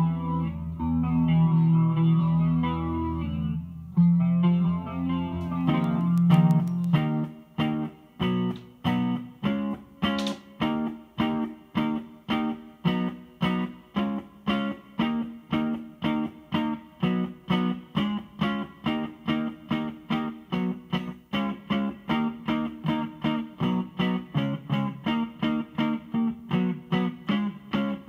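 Electric guitar played through a Behringer V-Amp Pro amp-modelling processor on a clean setting. Held chords ring for the first several seconds, then evenly picked short notes follow, about two a second, each dying away quickly.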